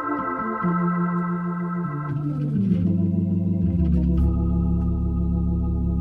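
Organ music: sustained chords held over a bass line that steps down in pitch several times.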